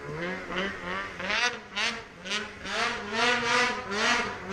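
Snowmobile engine revved up and down over and over, about two to three rises in pitch a second, as the throttle is worked through deep snow.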